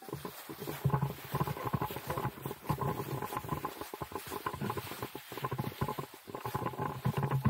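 Dry leaf litter rustling and crunching in rapid, irregular crackles as someone kneels and moves hands and feet through the fallen leaves.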